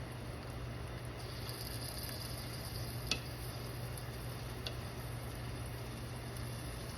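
Eggs frying in a pan with a steady soft sizzle over a low hum, with two small clicks about three seconds and nearly five seconds in.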